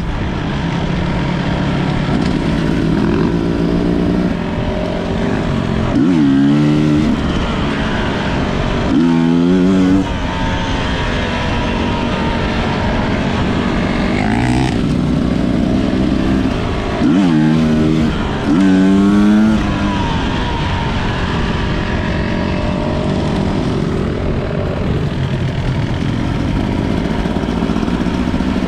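250 cc enduro dirt bike engine running under way, with several sharp bursts of throttle where the engine pitch climbs quickly and the sound gets louder, between stretches of steadier running.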